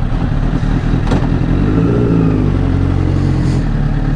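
Honda CBR1000RR's inline-four engine running steadily, with a single click about a second in.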